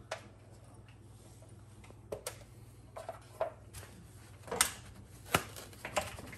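Light metallic clinks and knocks as a water heater's sheet-metal vent pipe and draft hood are handled and worked loose, about a dozen separate sharp taps with the two loudest near the middle. A faint low hum runs underneath.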